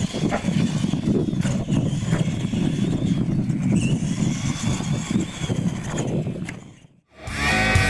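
Radio-controlled monster trucks racing on dirt: electric motors whining as the throttle changes, with knocks of the trucks bouncing over ramps. The sound fades out about six and a half seconds in, and music starts near the end.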